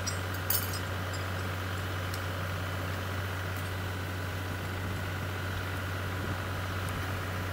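Grundodrill 5X horizontal directional drill rig's engine running steadily with a constant low hum, and a short metallic clink about half a second in.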